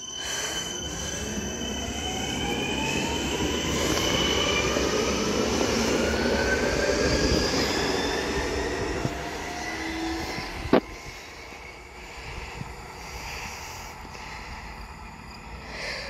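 Stadler FLIRT electric multiple unit pulling away, its traction motors whining in several rising tones as it accelerates over the rumble of wheels on rail. A single sharp click about eleven seconds in, then the sound fades as the train draws away.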